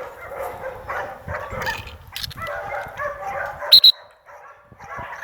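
Young dog whining and yipping in excitement. About three-quarters of the way through come two very short, shrill, high-pitched chirps in quick succession, the loudest sound here.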